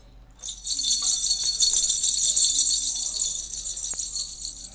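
Hand percussion shaken steadily for about four seconds, starting about half a second in, with one sharp click near the end.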